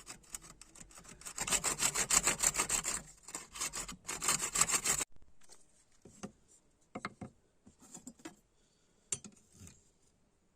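Rapid back-and-forth abrasive rubbing strokes on the knife by hand, in two runs of about a second and a half each, followed by a few scattered knocks.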